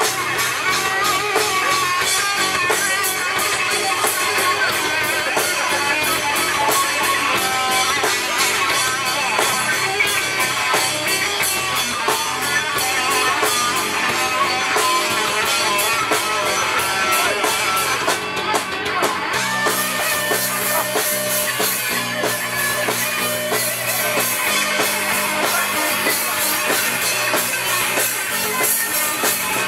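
Rock band playing live through a PA: distorted electric guitars, bass guitar and drum kit. About two-thirds of the way through, the song moves into a new section with heavier cymbals and held bass notes.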